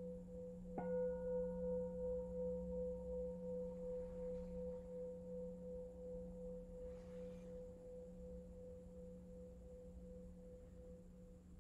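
Singing bowl struck once, about a second in, while the tone of an earlier strike is still ringing; the bowl rings on with a wavering tone that slowly fades away near the end.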